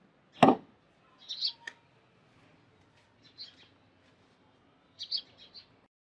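A cleaver blade chopping into a wooden stump: one sharp impact about half a second in, the loudest sound here. Birds chirp in short bursts three times after it.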